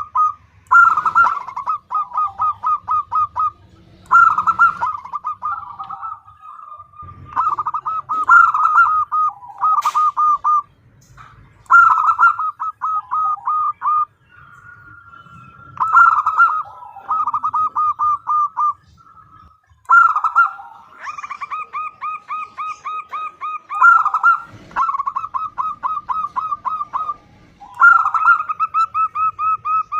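Female zebra dove (perkutut) calling to a male: runs of rapid, short, evenly spaced notes, about five a second. Each run lasts two to three seconds, with short pauses between.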